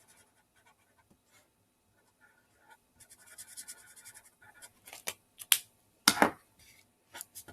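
Felt-tip marker drawing spots on paper: after a near-silent start, a run of quick, squeaky little strokes, then a few separate, louder strokes.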